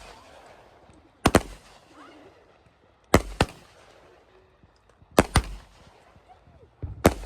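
Fireworks going off: sharp bangs, mostly in close pairs, about every two seconds, four times.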